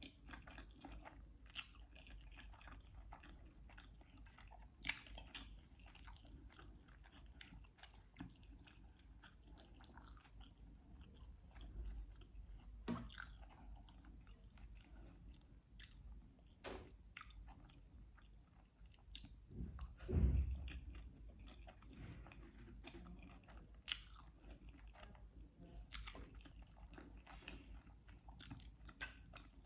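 Close-miked eating sounds: soft chewing and biting of food, with scattered small wet clicks of the mouth. A louder low thump comes about two-thirds of the way through.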